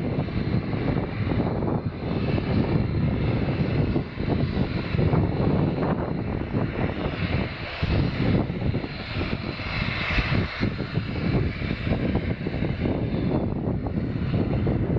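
A fixed-wing aircraft's engines running, their whine strongest about ten seconds in, over heavy rumbling of wind buffeting the microphone.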